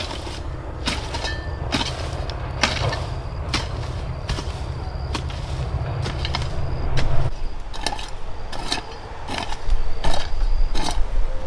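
A hand tool striking again and again in a cassava harvest, sharp knocks about once or twice a second. Under them runs a steady low rumble that drops away about two-thirds in and returns stronger near the end.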